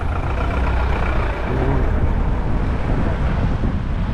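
Dense road traffic close by: motor vehicle engines running, with a steady low rumble.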